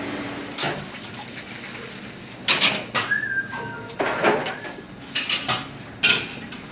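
Metal pans and utensils clattering and clanking in a kitchen, in a string of sharp knocks through the middle and latter part. There is a short high whistle-like tone about three seconds in.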